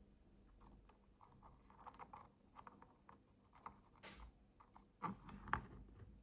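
Faint, irregular small clicks and taps of metal lighter parts being handled and fitted together while a Dupont Line 1 lighter is reassembled.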